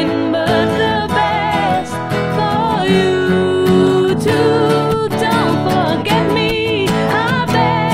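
Recorded music: a slow ballad with a singing voice over instrumental accompaniment.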